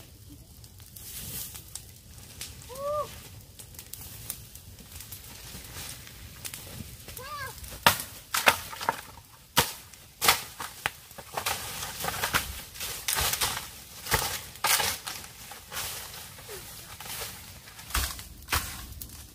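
Domestic fowl calling twice, short rising-then-falling calls a few seconds apart. These are followed by a busy run of sharp clicks and knocks.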